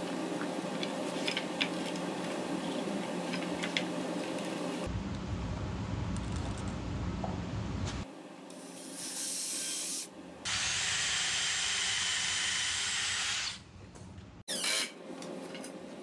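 Cordless drill-driver running in several separate runs of a few seconds each, starting about five seconds in, driving screws into the end grain of wooden table aprons to fix the connector hardware in its mortises.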